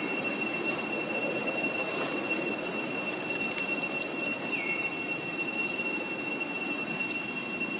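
Steady high-pitched drone of night insects over a low, even background hiss, with a short falling chirp about halfway through.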